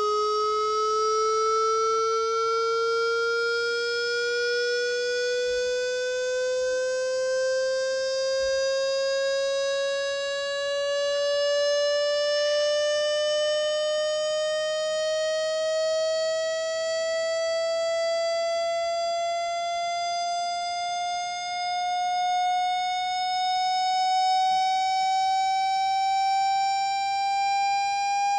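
Water-eject test tone: a steady electronic tone rising slowly in pitch, about an octave over half a minute. It is played through a phone's speaker to vibrate water out of it.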